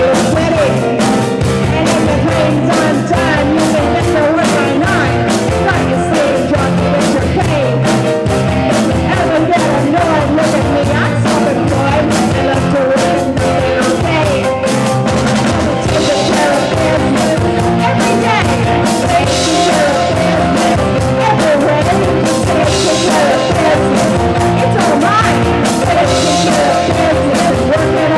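Live rock band playing a rock and roll number: electric guitars, bass guitar and keyboards over a steady beat, with a sung vocal.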